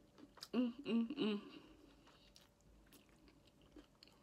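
A woman's voice making three short hummed sounds, rising and falling, about half a second in while she chews. After that come faint wet mouth sounds and a few small clicks.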